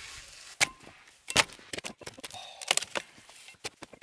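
Dry sticks being snapped by hand for firewood: a quick series of sharp wooden cracks and splintering.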